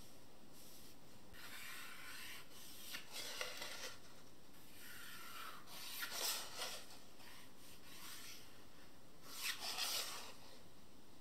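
Pencil scratching along a plastic ruler on an MDF board, with the ruler sliding on the board, in three spells of scratching, the last one the loudest.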